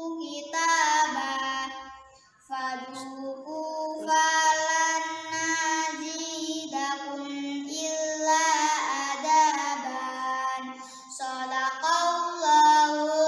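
A young girl reciting the Quran in the melodic murottal style, holding long, sung notes in flowing phrases. There is a short pause for breath about two seconds in.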